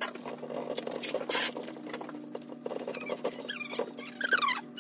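Hand wiping down a high-gloss laminate side table with a wet cleaning cloth: rubbing and patting on the surface, with a few short squeaks near the end as the cloth drags over the slick finish.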